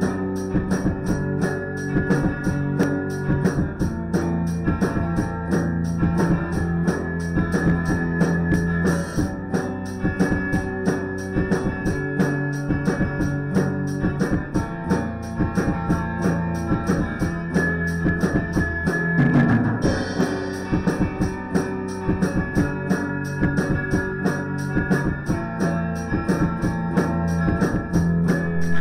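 A band playing a song: a drum kit keeps a steady beat of kick and snare over sustained bass and chord tones.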